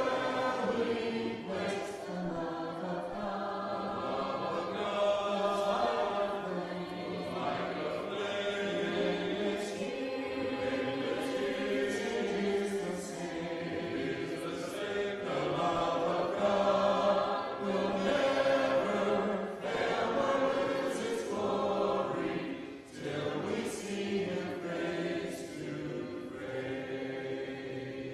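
Congregation singing a hymn together in unaccompanied four-part a cappella style, many voices at once. The singing dies away at the very end.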